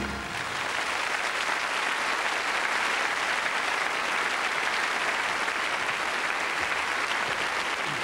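Large audience applauding, a dense, steady clapping that starts as the music stops.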